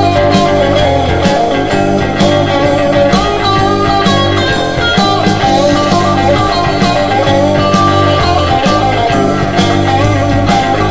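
Instrumental psychedelic hard rock: two electric guitars carrying a wavering melodic line over held bass notes, with a drum kit keeping a steady beat.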